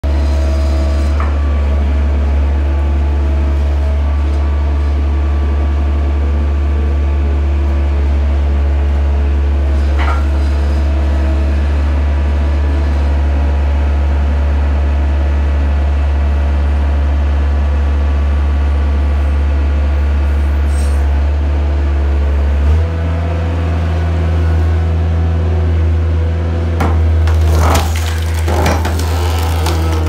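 Mustang skid steer engine running steadily, its note changing abruptly a little over 20 seconds in. Near the end, several sharp cracks and splintering as a large ash round splits on the six-way wedge of an inverted wood splitter.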